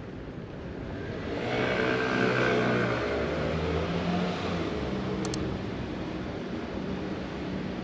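A motor vehicle passes close by, its engine swelling about a second and a half in and then easing off, over steady wind noise on the microphone. Two short high ticks come about five seconds in.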